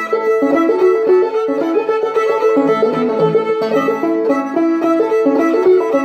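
Fiddle and banjo playing a tune together: a bowed fiddle melody stepping from note to note over steady plucked banjo notes, without a break.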